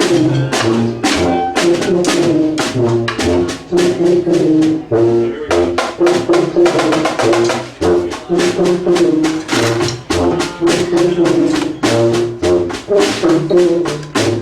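Brass band with drums playing a tune: horns holding notes over a steady, even drumbeat.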